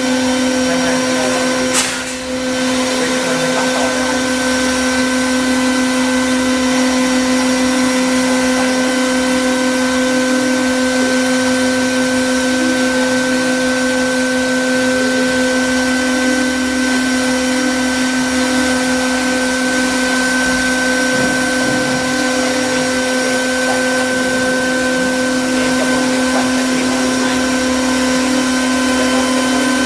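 CNC router's air-cooled 3 kW spindle running steadily, with a constant high whine over its fan noise. A single sharp knock sounds about two seconds in.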